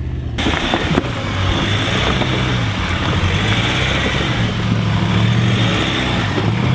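Four-wheel-drive ute engine working under load as it crawls up a rocky rut, its pitch rising and falling with the throttle. There is a constant noisy rush from the vehicle and a few sharp knocks early on.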